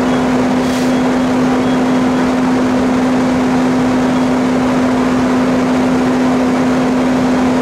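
Firefighting equipment's engine running at a constant speed: a loud, unchanging hum over a steady rushing noise.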